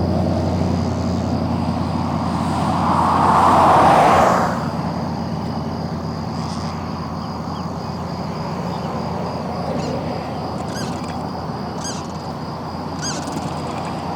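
Road traffic from a nearby highway: a car passes, swelling and fading about four seconds in, over a steady hum of traffic, with another vehicle approaching at the end. A few short high chirps sound about two-thirds of the way through.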